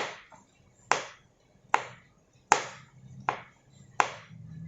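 Knife cutting aloe vera gel into small cubes: six sharp, evenly spaced chops on a cutting board, about one every three quarters of a second.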